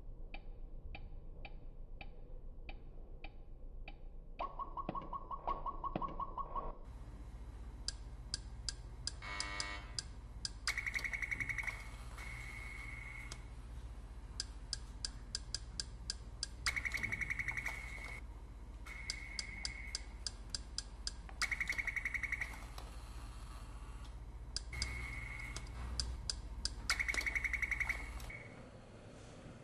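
Electronic feedback sounds of a touchscreen computer task worked by a chimpanzee. Short beeps come in quick runs, a steady high tone about a second long recurs every few seconds, a lower steady tone lasts about two seconds early on, and a fast rising run of tones comes near the tenth second, all over a low electrical hum.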